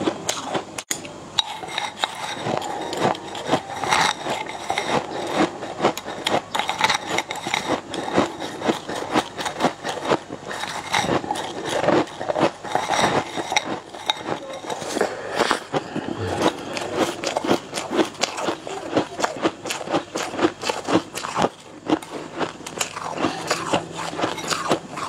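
Close-miked eating: wooden chopsticks clicking and scraping against a bowl rim as food is shovelled into the mouth, with constant fast clicking and crackling of chewing.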